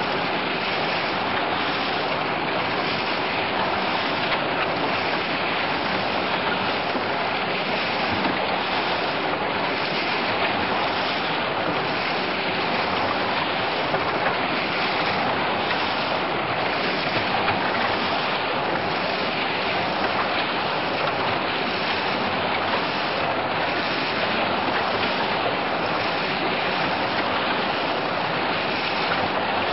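Twin-shaft cement mixer running: a steady rushing, churning noise with a faint low hum underneath.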